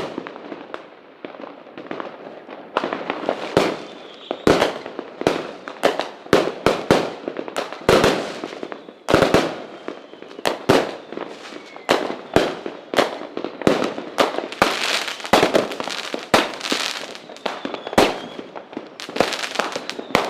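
Fireworks bursting: a rapid, irregular string of sharp bangs, sometimes several a second, each trailing off with crackle and echo.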